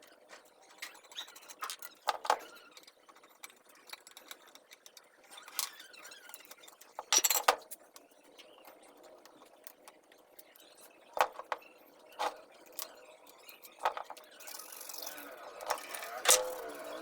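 Scattered clinks and knocks of metal tools and motor parts being handled, the loudest cluster about seven seconds in.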